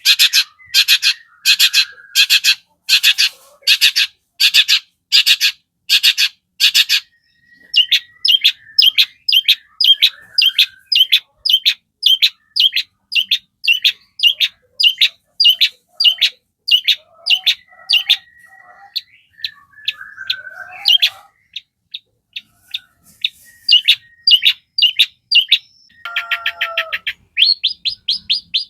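A long-tailed shrike (cendet) singing a loud, chattering song. It opens with a run of harsh notes about two a second, then breaks into a faster series of short notes mixed with varied squeaky phrases.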